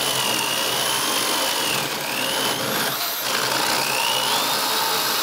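Corded electric drill running steadily as it bores a hole through a wooden board for a dowel. Its motor whine drops in pitch twice as the bit bites in under load, and climbs back each time.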